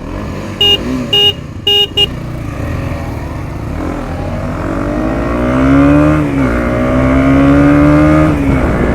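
KTM Duke 250's single-cylinder engine running, with four short horn beeps in the first two seconds. About halfway through, the engine pitch rises as it revs and pulls away, holds high, then drops near the end.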